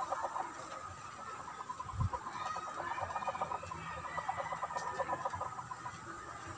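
Chickens clucking steadily, a quick run of short repeated calls, with one low thump about two seconds in.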